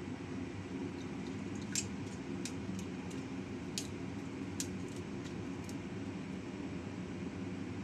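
Cauliflower florets being cut off the head with a small knife: a handful of short, crisp snaps a second or so apart, over a steady low hum.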